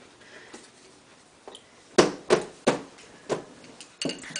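A run of five sharp knocks of hard objects, starting about two seconds in and spaced about a third to half a second apart, the first the loudest.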